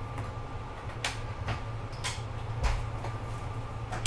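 Inside a SEPTA Regional Rail car standing at a station: a steady low hum from the car's equipment with a faint steady high tone over it, broken by a few sharp clicks and a loud thump at the very end.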